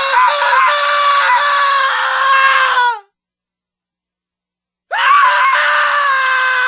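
Two stock scream sound effects, one after the other. The first is one long held scream of about three seconds that sags slightly in pitch and drops off at its end. After about two seconds of dead silence, a second long scream starts about five seconds in.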